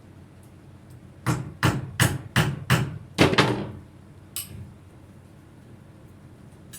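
A hammer striking about seven times in quick succession, roughly three blows a second, then one lighter knock.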